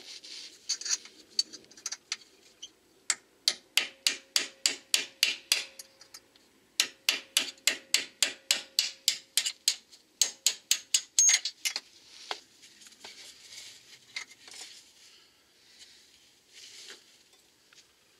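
Ratchet wrench clicking in three runs of even clicks, about four a second, as a lower-control-arm-to-subframe mounting bolt is undone. Fainter scraping and handling of the loosened bolt follow near the end.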